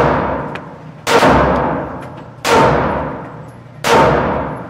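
Glock 26 Gen 4 9mm pistol fired three times at a slow, steady pace, about a second and a half apart. Each shot is a sharp crack followed by a long echoing decay in the concrete-block range. The clip opens on the fading echo of an earlier shot.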